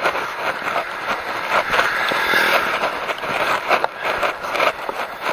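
Riding noise of a bicycle on an asphalt road: a steady hiss of tyres and air with irregular small rattles and clicks from the bike, swelling a little around the middle.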